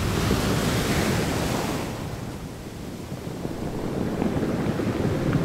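Sea surf washing onto a beach: a wave's wash swells in the first two seconds, eases off around the middle, then builds again near the end.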